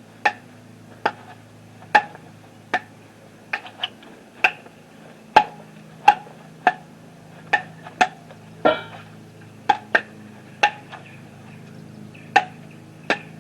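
A pocket-knife blade chopping into a wooden post again and again, about eighteen sharp strikes at an uneven pace, roughly one or two a second, in a hard-use chop test of the blade.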